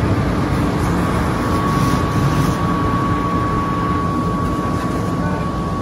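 Fire engine running steadily while pumping water to a charged hose line, a dense low drone with a thin steady high whine joining about a second in.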